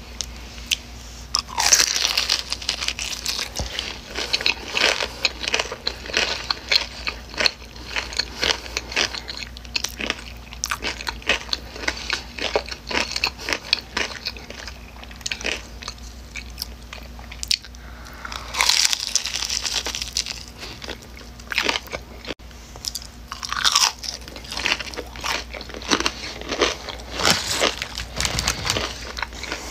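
Close-miked crunching and chewing of a crispy breaded chicken tender, with loud crunchy bites about two seconds in, and again around 19 and 24 seconds, and wet chewing in between.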